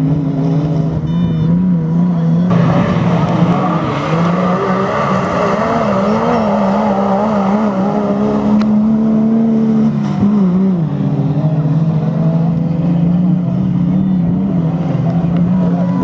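Engines of GAZ-based autocross racing trucks running hard, the engine note wavering up and down as they accelerate and ease off on the dirt course, with a marked shift in the note about two and a half seconds in and again about ten seconds in.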